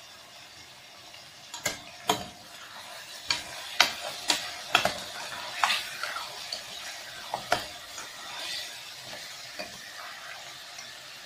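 Mutton pieces sizzling in hot oil in an aluminium pressure cooker while a metal spatula stirs them, knocking and scraping against the pot. The sharp knocks bunch together from about one and a half to seven and a half seconds in, then thin out to the sizzle. The meat is being seared with browned onions.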